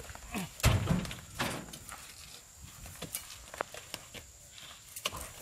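Oil palm fruit bunches being tossed up onto a truck's load. A heavy thud comes a little under a second in, followed by scattered lighter knocks.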